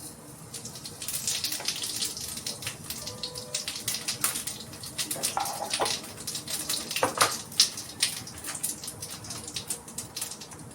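Food sizzling and crackling in a hot pan: a dense, irregular crackle of sharp pops over a steady hiss, growing louder about a second in, with a few short utensil scrapes midway.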